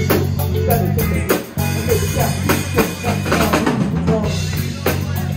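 Live rock band playing loud, with a drum kit's bass drum and snare hits driving a steady beat over electric guitar and bass guitar.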